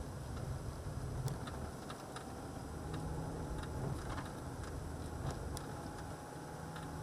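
Car cabin noise while driving: a steady low engine and road rumble, with light clicks and ticks at irregular intervals.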